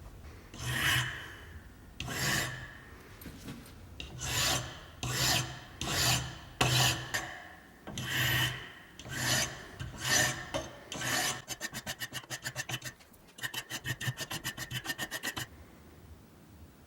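Hand file rasping on a workpiece, first in slow separate strokes about one a second, then in quick short strokes several a second, in two runs near the end.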